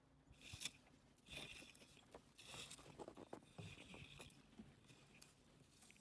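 Snow brush sweeping snow off a car, several faint crunchy, scratchy strokes a second or so apart.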